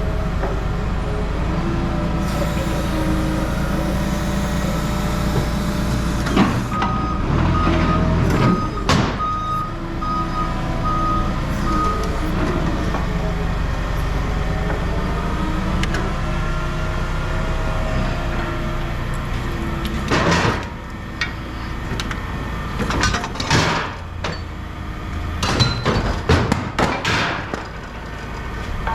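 Heavy vehicle engine running steadily, with a reversing alarm beeping for about five seconds starting seven seconds in. Sharp metallic clanks and bangs come a few times, thickest in the last third.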